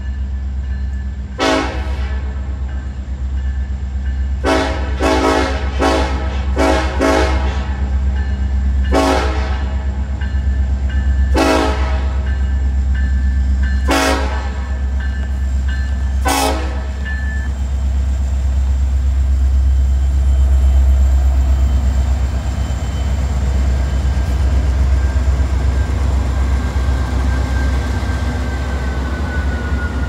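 A Norfolk Southern diesel freight locomotive's air horn sounds a salute of about eleven short blasts, several in quick succession, over the first half. Underneath, the locomotives' diesel engines rumble steadily, loudest as they pass about two thirds of the way in.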